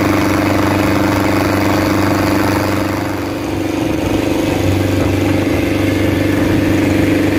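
Small boat's engine running at a steady drone while under way, with the rush of its churning wake.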